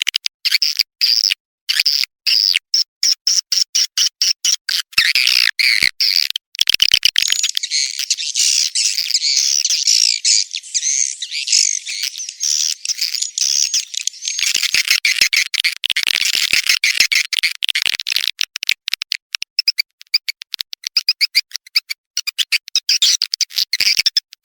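Swiftlet calling-sound recording, the kind played to lure edible-nest swiftlets into a nesting house: dense, high-pitched swiftlet twittering and chirping, chopped by frequent abrupt gaps.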